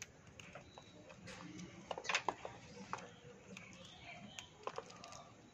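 Budgerigars nibbling and cracking a biscuit with their beaks: faint scattered clicks and crunches, several in quick succession about two seconds in.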